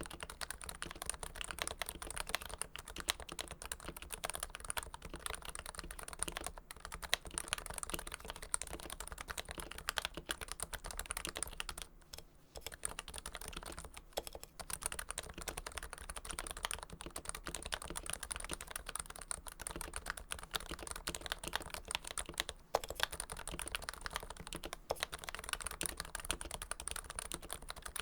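Continuous fast typing on a Topre electrostatic-capacitive keyboard, a Realforce Hipro plate in a first-generation Realforce TKL case with its switches lubed with Krytox 105. A dense run of keystrokes, with a brief pause about twelve seconds in.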